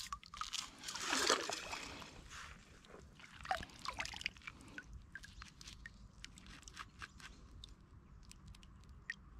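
Shallow lake water sloshing and trickling, loudest about a second in, then settling into faint drips and small splashes.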